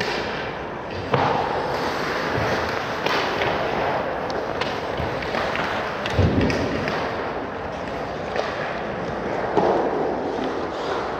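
Hockey rink game sounds: skates scraping on the ice, with a few sharp knocks of the puck, sticks and players against the boards, the loudest a deep thump about six seconds in.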